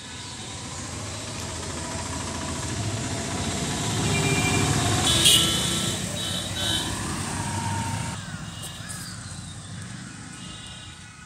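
Motorcycle and van engines passing close on a narrow road: the engine noise grows louder, peaks about halfway through, then fades away.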